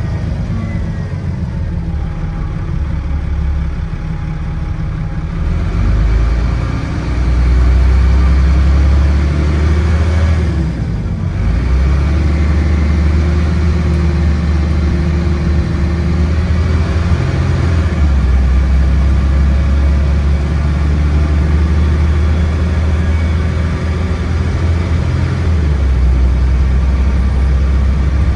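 Dennis Trident double-decker bus's diesel engine heard from a seat inside the bus, revving hard under acceleration. The engine note climbs about six to eight seconds in, breaks briefly about eleven seconds in, then runs on loud and steady.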